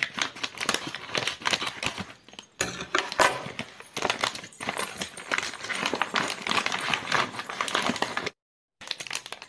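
Plastic courier mailer crinkling and rustling as it is cut open with scissors and handled, with plastic-wrapped items being pulled out of it; the crackling gets busier and louder a few seconds in.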